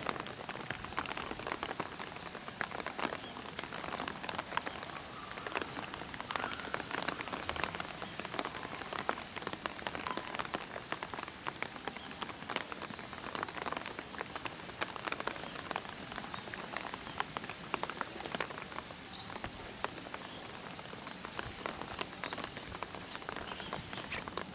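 Steady, dense pattering of many tiny ticks, like rain falling on surfaces.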